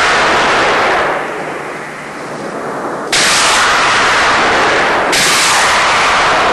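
Rocket-propelled 250 kg aerial bombs launching from a truck-mounted launcher: the rush of one launch fades, then two more launches start suddenly about three and five seconds in. Each is a loud rush of rocket exhaust that dies away over a second or two.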